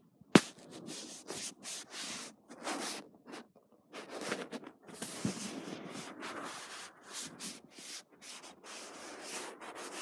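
Handling noise: cloth and plush fabric rubbing and scraping over the phone's microphone in a run of irregular strokes, with one sharp knock just after the start.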